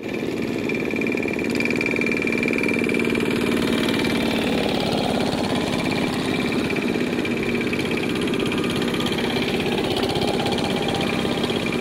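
Several two-wheel hand tractors, Kubota ZT155 single-cylinder diesels, chugging steadily as they pull loaded rice trailers along a muddy track.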